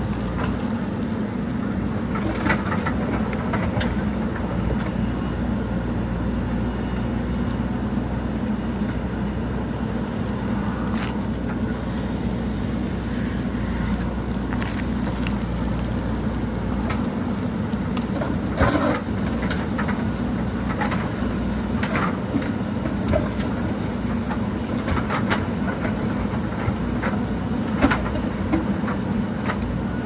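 JCB backhoe loader's diesel engine running steadily under load while the backhoe digs, with scattered clanks and knocks from the bucket striking rocks and stones.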